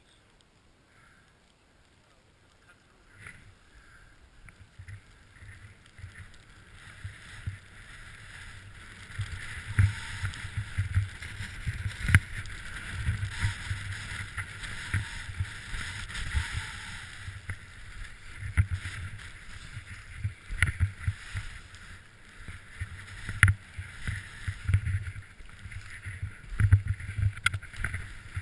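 Skis hissing and scraping over snow while the skier is moving downhill, with wind buffeting the microphone and uneven low thumps. It starts faint and grows loud about a third of the way in as speed picks up.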